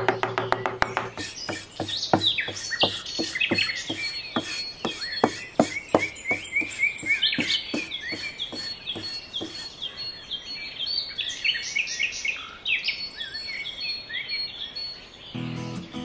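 Many small birds chirping in quick, overlapping calls, with a run of light ticks in the first half. Music comes back in near the end.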